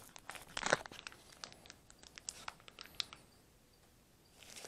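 Faint crinkling and clicking of a small plastic packet of wheel bearing grease being handled in gloved hands, a scatter of small sounds that stop about three seconds in and start again softly near the end.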